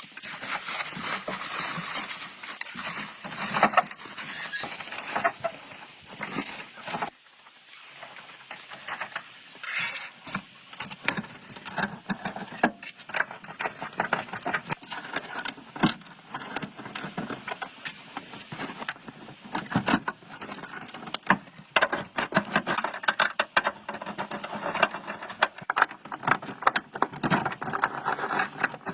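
Rapid, irregular clicking, tapping and rattling, with a quieter stretch about seven seconds in.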